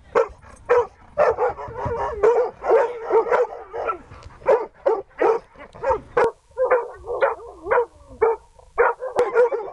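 Siberian husky barking and yelping over and over, about two to three barks a second with short breaks. Near the end it stands barking at a wooden hiding box: the search-and-rescue dog's bark alert that marks a found person.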